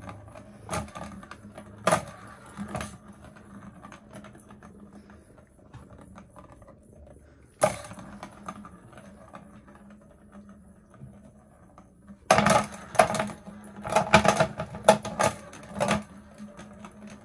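Plastic circular track cat toy clattering as a cat bats the ball around it: a few sharp clicks at the start, one sharp knock about halfway, then a run of loud clattering from about twelve to sixteen seconds in.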